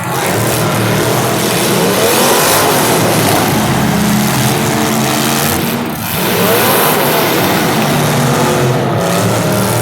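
Several demolition derby cars' engines revving hard at once, loud and continuous, their pitch repeatedly rising and falling as drivers gun and back off the throttle.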